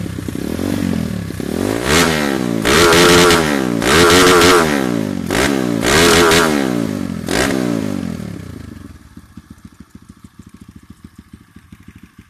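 A Kawasaki KLX single-cylinder four-stroke engine, freshly bored up to about 200cc and breathing through an aftermarket Purbalingga-made stainless exhaust, is free-revved in about half a dozen sharp throttle blips. Each blip rises and falls in pitch. About three-quarters of the way through, the engine drops back to an even idle.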